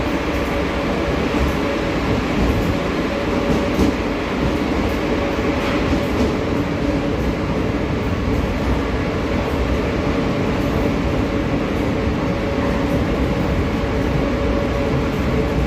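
Buenos Aires Subte Line E subway train running, heard from aboard: a steady rumble of wheels on rail with a steady motor hum and a few faint clicks.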